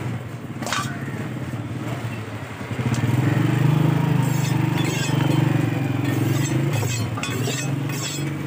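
Heavy cleaver chopping fish on a wooden block: sharp knocks and chops. An engine starts running about three seconds in, a low steady drone that is the loudest sound, then fades near the end.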